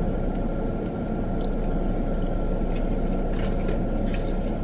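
Steady low rumble of a car cabin with a faint high whine running through it. Soft clicks and smacks of someone chewing a mouthful of macaroni and cheese come over the top now and then.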